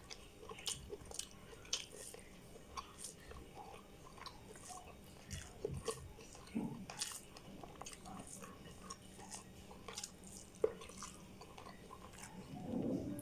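A person chewing and smacking while eating rice and prawn curry by hand: soft, irregular wet mouth clicks, with a louder low sound near the end.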